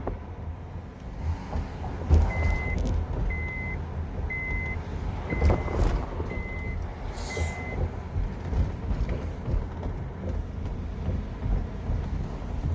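Car driving over rough road, a steady low rumble with uneven thumps and a few sharp knocks from the coilover suspension on bumps, a noise the owner says has appeared in the last three months. A short high beep repeats six times, about once a second, in the first half.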